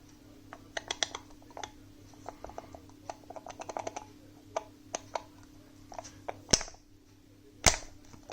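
Small clicks and rattles as a dovetail puzzle box is handled, then two sharp knocks near the end as its corner is struck to shift the ball bearing inside that locks the sliding part.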